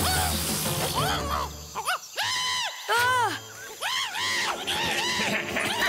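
Cartoon background music for the first two seconds, then an animated character's squeaky wordless cries: about seven short calls, each rising and falling in pitch.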